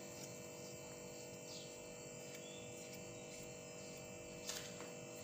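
Steady faint electrical hum made of several constant tones over quiet room tone, with one soft click about four and a half seconds in.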